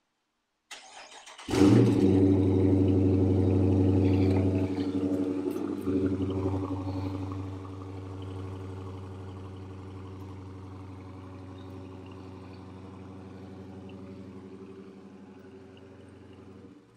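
A Dodge Charger R/T's V8 is started on its stock exhaust. The starter cranks briefly, then about a second and a half in the engine catches with a loud flare. It holds a raised idle for a few seconds, then settles to a quieter, steady idle. This is a warm start rather than a true cold start, since the car has been run recently.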